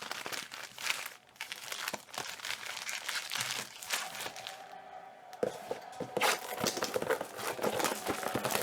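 Wrapped trading-card packs crinkling and cardboard tearing as 2018 Optic football card boxes are opened and the packs pulled out. The rustling gets busier and louder about halfway through.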